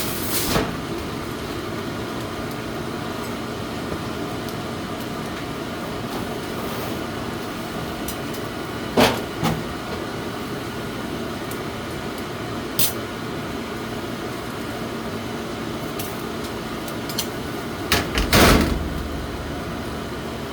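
A steady mechanical hum with a constant low drone, broken by a few short knocks and clatters, the loudest cluster near the end.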